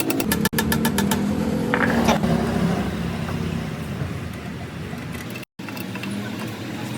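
A motor running with a steady hum, with a quick run of clicks in the first second.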